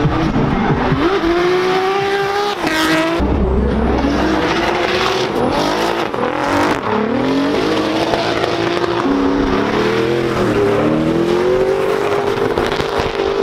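Drift cars' engines revving hard, pitch rising and falling over and over, with tyres squealing as the cars slide.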